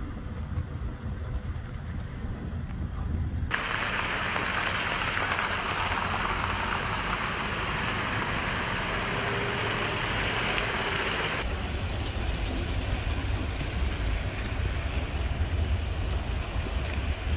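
Outdoor road noise at a snowy roadside: a low rumble of wind and traffic, broken by a sudden cut to several seconds of steady hiss from vehicles on a wet, slushy road. Then it cuts back to a heavier low rumble of wind buffeting the microphone.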